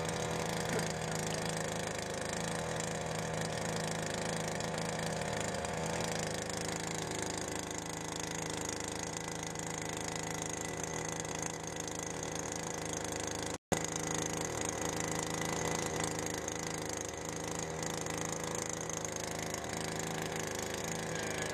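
Steady machine hum of a solar-panel cleaning rig at work: the Solarcleano F1 robot's rotating brush running over the panels along with the water pump feeding its hose. The sound cuts out for an instant about two-thirds of the way through.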